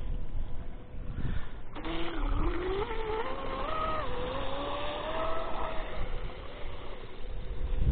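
Genesis RC catamaran's SSS 3674 brushless electric motor whining as the boat is throttled up across the water. The whine comes in about two seconds in, rises in pitch, wavers with the throttle, and fades out about six seconds in.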